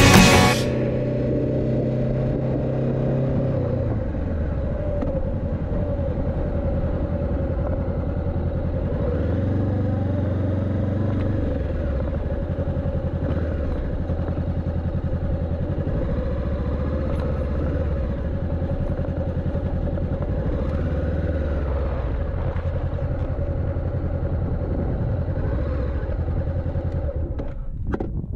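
Honda CB500X's parallel-twin engine heard from the rider's seat, running at low road speed, its pitch falling and rising several times with throttle and gear changes as the bike slows. The sound drops out briefly near the end as the bike comes to a stop.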